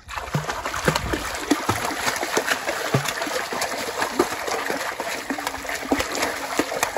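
Continuous splashing from a child kicking her legs in shallow pond water as she tries to swim, with many sharp slaps of water.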